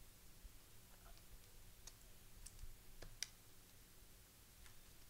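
Near silence with a few faint, scattered clicks from trading cards being handled, the sharpest a little after three seconds in.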